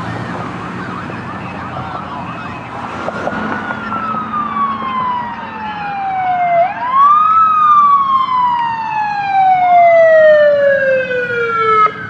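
Fire engine siren wailing, growing louder as the truck approaches: long slow falls in pitch, each followed by a quick rise, then cut off abruptly near the end.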